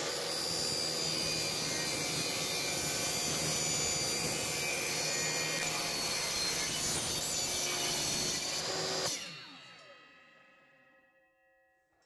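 DeWalt DW713 miter saw running and cutting through a metal compressor motor housing, a steady, dense sawing noise. About nine seconds in the cut stops and the motor winds down, its pitch falling as the blade spins down and fades out.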